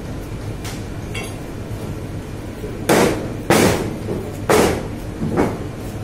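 Four sharp, heavy knocks on a hard surface, starting about three seconds in and coming roughly half a second to a second apart, each with a short ringing tail, the last one softer. A steady low hum runs underneath.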